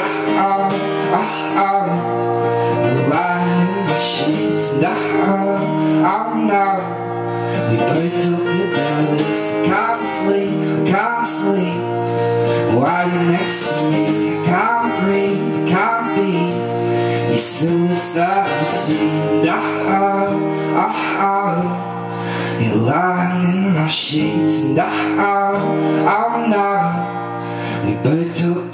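Acoustic guitar strummed and picked at a steady tempo in an instrumental passage after the last sung verse.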